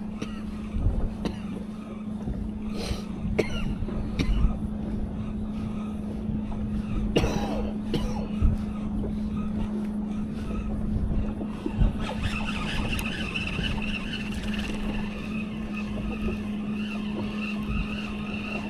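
A boat motor hums at a steady pitch under a low rumble, with scattered clicks and knocks. About twelve seconds in, a higher steady whine joins it.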